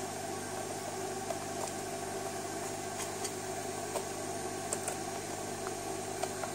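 Steady background hum with a few faint clicks and taps, from small plastic parts of a receiver casing being handled during reassembly.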